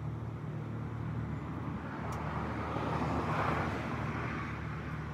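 A car passing on the road, its tyre and engine noise swelling to a peak a little past halfway and then fading, over a steady low engine hum.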